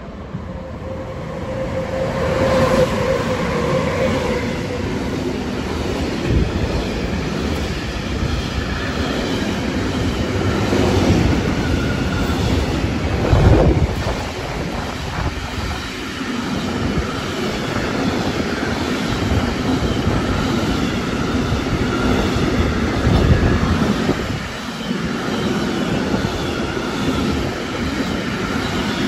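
A long freight train passes at speed. It is headed by two Siemens Vectron class 193 electric locomotives and made up of intermodal wagons carrying road semitrailers. The rolling noise of wheels on rail builds over the first few seconds, then stays steady as the wagons go by.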